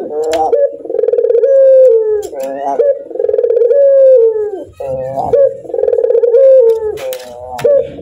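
Barbary dove (burung puter) giving its laughing call: about four drawn-out coos, each around a second long, that open with a rapid stuttering roll and run on as a steady note, with short rougher notes between them.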